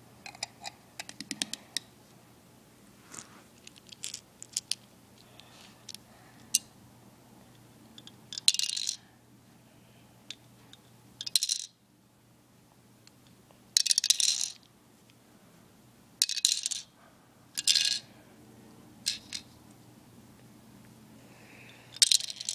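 Small plastic building bricks clicking and clattering as pieces are handled and pressed together: scattered sharp clicks, then several short bursts of rattling, each under a second.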